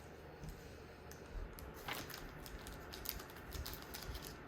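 Scattered, irregular light clicks and handling of plastic over faint room hum.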